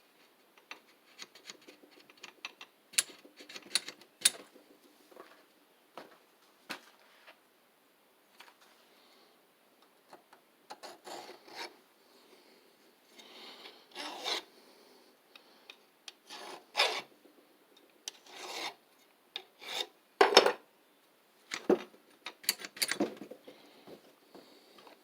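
A metal file rasping at a burr on the end of a Briggs & Stratton WMB crankshaft, which a part is catching on. Scattered clicks and taps come first, then irregular short bouts of file strokes.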